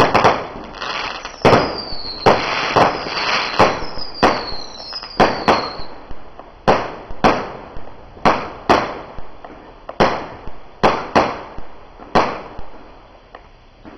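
Low-noise 1.4G consumer fireworks firing in quick succession: more than a dozen sharp pops, roughly one or two a second, over a crackling hiss. A few short falling whistles come between about two and six seconds in, and the shots thin out and fade near the end.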